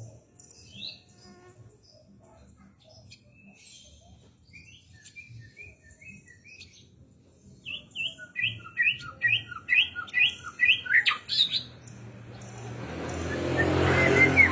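White-rumped shama (murai batu) singing: scattered soft notes at first, then from about halfway a loud run of repeated short whistled notes, roughly two a second. Near the end a rushing noise swells up under the song.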